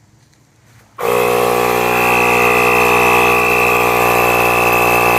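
A horn sounding one long, steady, loud blast at a constant pitch, starting abruptly about a second in.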